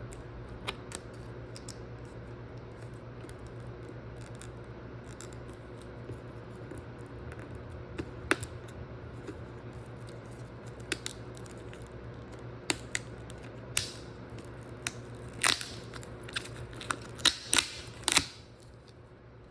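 Steady low electric hum with scattered sharp clicks and scrapes of parts being handled and cleaned. The clicks come faster and louder in the last few seconds, and then everything, the hum included, cuts off about a second before the end.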